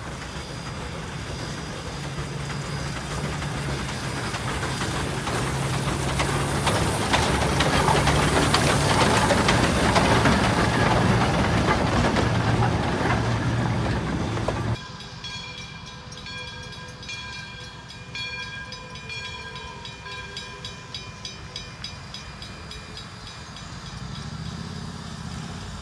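Shay geared steam locomotive and its train of cars rolling past close by, wheels clicking over the rail joints, growing louder as the cars pass. About fifteen seconds in it stops abruptly, leaving a quieter stretch with faint steady tones and a fast, even ticking.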